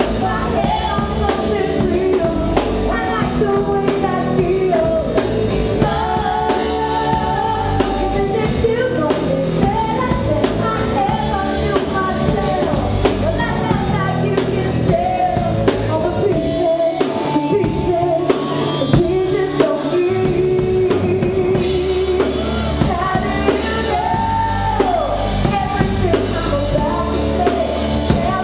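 A woman singing a pop-rock song live into a handheld microphone over an instrumental backing with drums.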